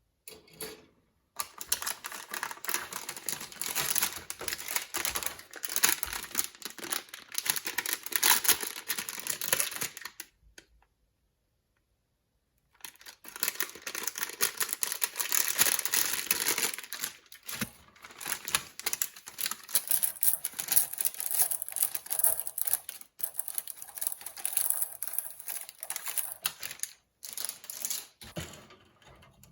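Plastic kit packaging crinkling and rustling as it is handled and opened, in two long stretches of dense, rapid crackling with a silent gap of a couple of seconds between them.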